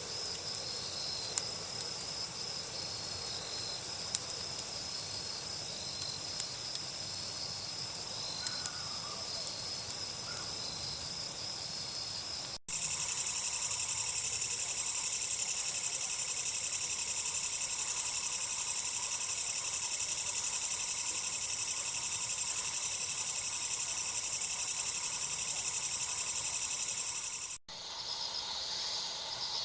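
A chorus of singing insects such as crickets: steady high trilling with a repeating chirp beneath it and a few sharp ticks. About halfway through the sound cuts to a louder, denser insect chorus, and it cuts again near the end.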